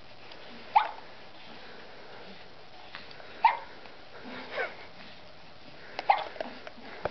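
Three short, sharp hiccups, evenly spaced about two and a half seconds apart, with a fainter sound between the second and third.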